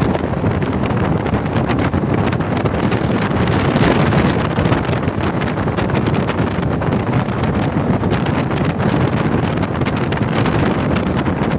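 Wind buffeting the microphone in a moving car, with road noise underneath, loud and steady throughout.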